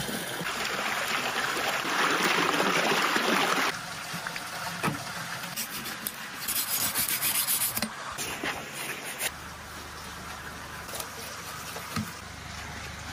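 Water splashing for the first few seconds as a live sturgeon is lifted out of a hole of icy water. Later comes a knife rasping along the sturgeon's bony skin and scutes for about a second.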